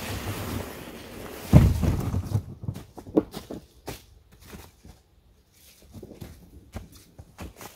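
Wind buffeting the microphone, then a heavy thump about a second and a half in, followed by a run of scattered short clicks and knocks that thin out toward the end.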